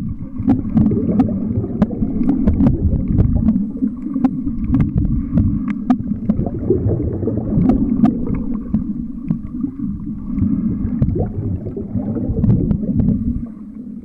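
Underwater rush and rumble of churning surf in the breaking zone over a shallow rocky reef, muffled as heard from inside a camera's waterproof housing. Many sharp clicks and crackles come through it.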